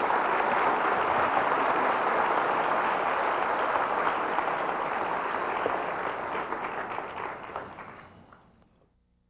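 A large auditorium audience applauding, many hands clapping steadily together, then fading out about eight seconds in.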